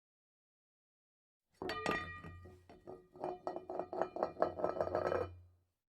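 A rapid run of clinks with ringing tones over a low hum. It starts about a second and a half in, grows denser, and stops about half a second before the end.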